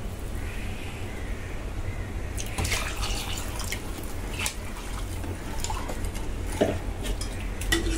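Water poured from a steel vessel into a pot of curry, splashing into the liquid. A ladle then stirs it with a few light clinks against the metal pot.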